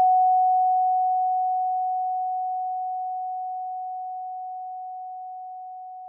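A single pure 741 Hz tone, steady in pitch and slowly dying away.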